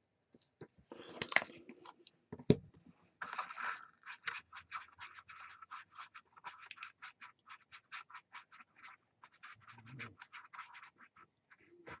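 A paintbrush mixing paint on a plastic palette tray: a run of quick scratchy strokes, several a second. Near the start there are a few knocks, the loudest about two and a half seconds in, from the paint and palette being handled.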